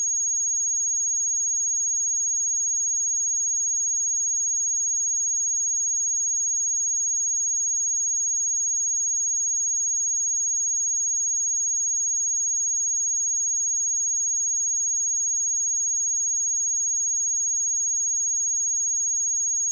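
A steady, unbroken 6605 Hz sine-wave test tone: a single high-pitched pure tone held at an even level.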